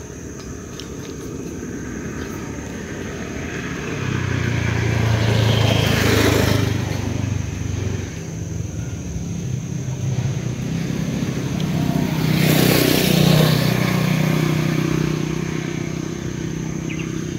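Small motor engine sounds passing by twice, each swelling to a peak and fading, with the engine pitch shifting as it goes.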